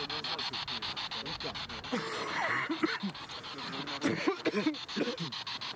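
Spirit box (ghost box) sweeping through radio stations: choppy static cut by rapid, even clicks about ten a second, with brief broken snatches of voice-like radio sound.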